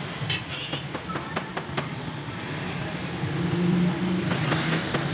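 A motor vehicle engine running steadily nearby, its low hum swelling a little past the middle. Several light clicks in the first two seconds as small metal angle-grinder parts are handled.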